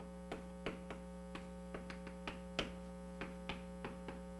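Chalk tapping and scratching on a blackboard as equations are written: a string of short, irregular taps, about three a second, over a steady electrical hum.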